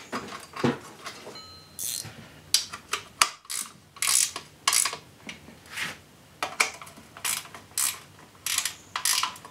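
Ratcheting wrench clicking in short bursts, about one back-swing every half to three-quarters of a second, as it drives in the bolts that hold down a small engine's blower housing.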